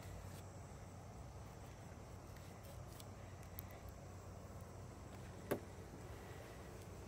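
Faint outdoor background of steady insect drone over a low hum, with a few small handling clicks and one sharper click about five and a half seconds in.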